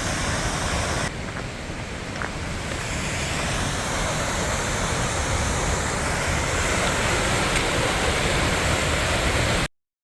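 Tunnel Falls on Eagle Creek pouring, a steady rush of falling water. It cuts off abruptly near the end.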